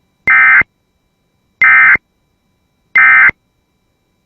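Three short, loud bursts of EAS SAME digital data tones, the end-of-message code that closes an emergency alert, evenly spaced about a second and a third apart.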